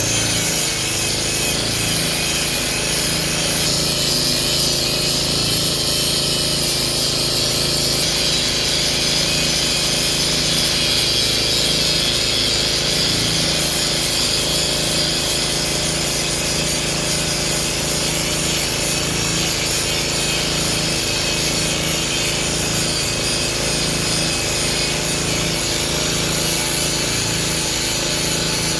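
Hitachi excavator's diesel engine running steadily under load, with a high hiss over its low hum, while it works at chipping oil palm trunks.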